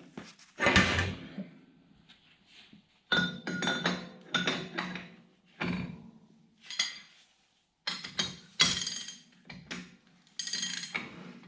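Steel sockets and hand tools clinking and clanking against each other, a string of separate metal knocks, several with a brief ring after them.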